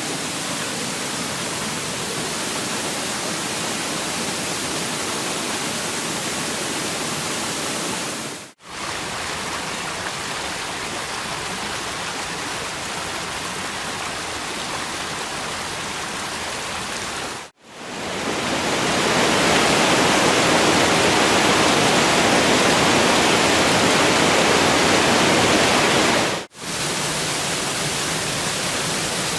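Waterfalls rushing in a steady roar of falling water: several separate recordings played one after another, each cut off by a brief pause. The third recording, from about 18 to 26 seconds, is louder and brighter than the others.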